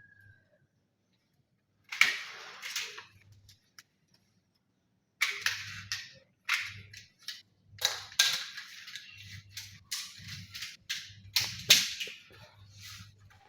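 Irregular sharp knocks and clacks of hand installation work on a suspended ceiling grid, in one burst about two seconds in and then a dense run of hits from about five seconds on.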